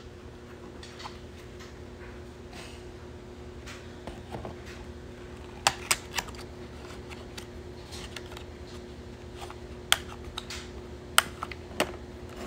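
Cardboard retail box being opened by hand: sharp clicks and taps as the flaps and tabs are pulled and fingers knock on the carton, in small clusters about halfway through and again near the end, over a steady low background hum.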